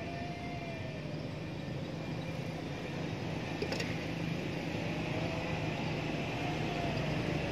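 Steady hum of distant motor traffic, with a faint engine whine that slowly rises and falls twice. A single short click about three and a half seconds in.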